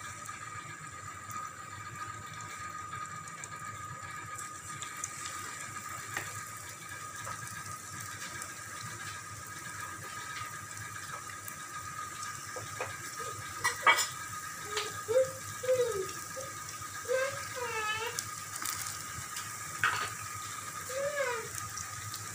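Spinach pakora batter frying in hot oil in a wok: a steady sizzle. From about 13 seconds in, sharp clicks and scrapes of the spoon on the pan are heard as more batter is dropped in, the loudest a little before 14 seconds and at 20 seconds.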